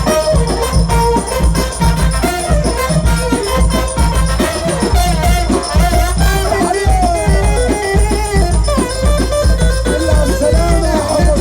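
Loud Egyptian wedding dance music: a heavy, even bass beat under a melody that slides up and down, with shaken percussion.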